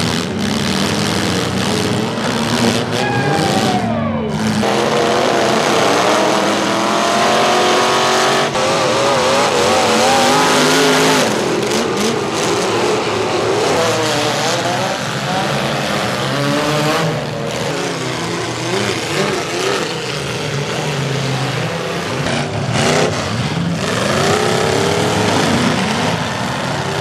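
Demolition derby car engines revving hard, their pitch rising and falling again and again, with sudden sharp crashes of car-on-car hits.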